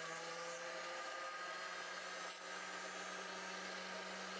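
Small bench drill press motor running steadily with an even hum, spinning a model-train axle in its chuck while a file is held against it to turn the axle down into a thin pin.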